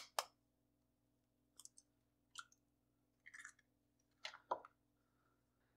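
Egg shells cracking over a stainless steel mixing bowl: two sharp clicks right at the start, then scattered faint clicks and crackles as the shell is pulled apart.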